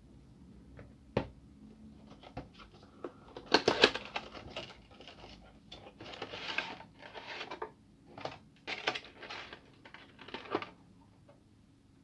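Cardboard box and clear plastic tray being handled and pulled apart: a sharp click about a second in, then scattered clicks, rustles and crinkles of plastic and card, loudest about four seconds in.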